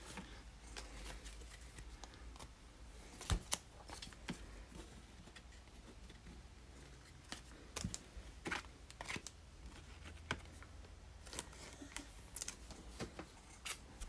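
Trading cards and a clear plastic card sleeve being handled: scattered light clicks, taps and short rustles of card and plastic, with two sharper clicks about three and a half seconds in.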